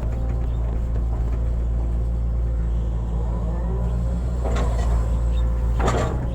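Hitachi excavator's diesel engine running steadily, with a faint whine rising and falling about halfway through and two sharp knocks in the second half.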